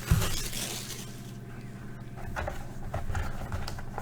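A cardboard trading-card box being opened by hand. There is a thump at the very start, then rustling and light scraping of cardboard and packaging.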